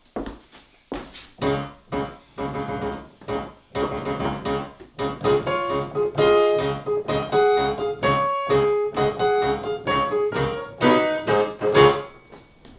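Yamaha keyboard with a piano sound, played by hand: a tune of struck notes and chords, one middle note struck over and over, each note dying away. The playing thins out near the end.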